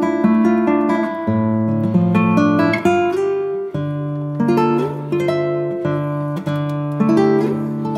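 Background music: an acoustic guitar playing plucked notes over changing chords.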